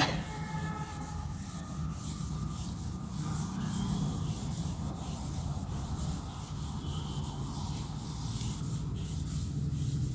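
Blackboard duster rubbed back and forth across a chalkboard, wiping off chalk writing in a long run of repeated strokes.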